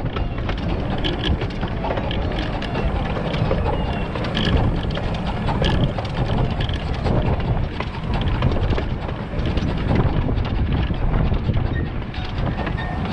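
1920 Albert Barnes 4-4-2 fifteen-inch gauge steam locomotive running along the track, heard from the footplate: a steady running rumble with frequent irregular clicks, and wind buffeting the microphone.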